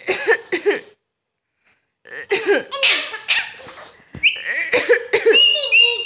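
Alexandrine parakeet vocalizing: a quick run of short chattering calls, squawks and a few held whistle notes, broken by a one-second gap about a second in.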